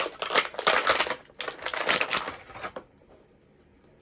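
Plastic and cardboard action-figure packaging crinkling and clicking as it is handled: a rapid run of crackles for nearly three seconds that then stops.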